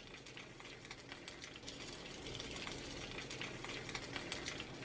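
Sliced onions sizzling and crackling as they fry in hot oil in a pot, a steady sizzle dotted with quick pops that grows louder after about two seconds.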